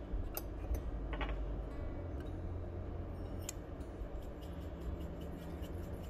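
A few sharp clicks of a metal spoon against a stone mortar, then sparse light ticks as a metal-capped shaker is shaken over it, over a steady low hum.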